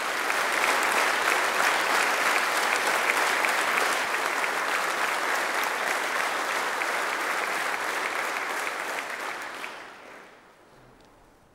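Concert audience applauding, dense steady clapping that dies away about ten seconds in.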